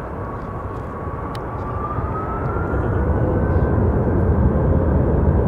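Rolls-Royce RB211 jet engines of a Boeing 747-400 running at high power with a loud low rumble and a whine rising in pitch over the first three seconds, the whole sound growing louder.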